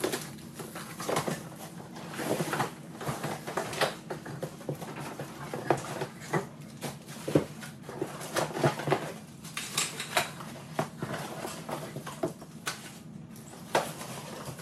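Cardboard box flaps and plastic packaging being opened and handled: irregular rustling and crinkling with many sharp knocks and scrapes.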